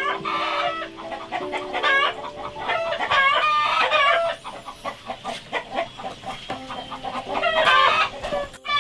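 Chickens clucking in several short bursts of calls, loudest about three seconds in and again near the end.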